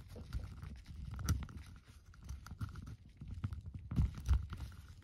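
Small plastic clicks and scraping as a toy staff is worked into the clip on the back of a plastic action figure's shell, over low bumps of fingers handling the figure. The sharpest clicks come about a second in and again near four seconds.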